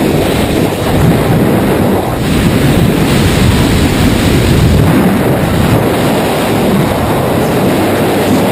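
Loud, steady rush of wind buffeting the camera microphone during skydiving freefall.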